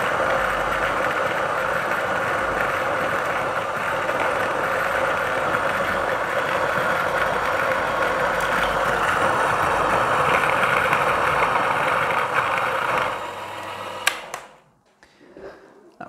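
Niche Zero coffee grinder, with 63 mm conical steel burrs and a geared-down DC motor, grinding an 18 g dose of beans at an espresso setting. The grinding noise of the beans is louder than the quiet motor and runs steadily, then trails off and stops about 13 seconds in, followed by a single click a second later.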